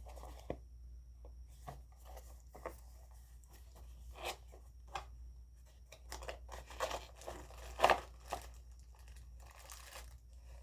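An action camera's box and packaging being opened and unpacked by hand: irregular tearing and crinkling with sharp clicks and snaps, the loudest snap about 8 seconds in.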